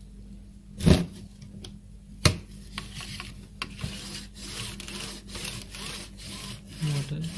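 Dot matrix printer's print-head carriage slid by hand along its guide rod: two sharp clicks, then a rough scraping rub that runs on for several seconds. This is the scraping noise that the technician hoped the oil would cure; he puts it down to dirt in the carriage and parts that seem worn.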